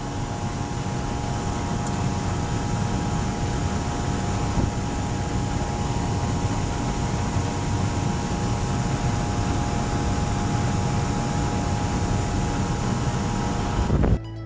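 A vehicle engine running at a steady speed, a constant low rumble with a steady whine over it, stopping abruptly near the end.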